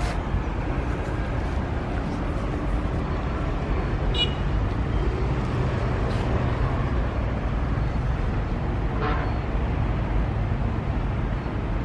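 Steady low rumble of outdoor background noise, with a faint brief high sound about four seconds in.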